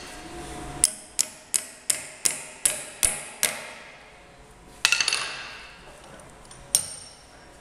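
Small ball-peen hammer tapping steel wedges driven between a Jacobs drill chuck and its Morse taper arbor, to force the stuck arbor out of the chuck. It gives eight quick ringing metal taps at about three a second, then a louder clattering metallic clank about five seconds in and one more tap near the end.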